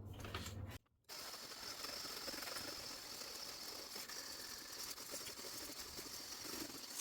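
Electric mixer beating egg whites to stiff peaks, a steady whirring hiss that starts after a brief silent gap about a second in.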